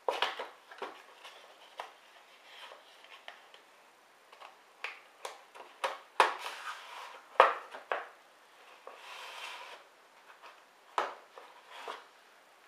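Cardboard knife box being opened by hand: a string of irregular taps, clicks and knocks of the packaging on a wooden tabletop, with stretches of scraping and rustling as the wooden inner box is slid out of its cardboard sleeve.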